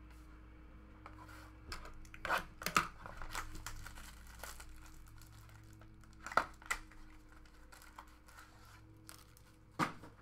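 Trading cards and their packaging being handled: crinkling and rustling with short scrapes, loudest about two and a half seconds in, about six and a half seconds in and near the end.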